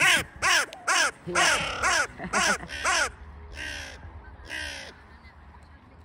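Hooded crow cawing: a quick run of about eight loud, harsh caws, roughly two a second, then two fainter caws.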